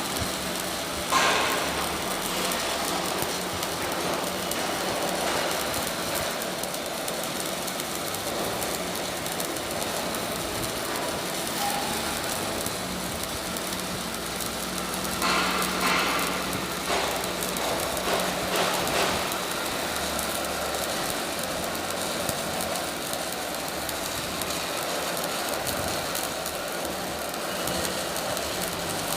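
Electric arc welding overhead: the arc's steady crackling sizzle, with a low steady hum beneath it. There are a few louder crackles about a second in and again about halfway through.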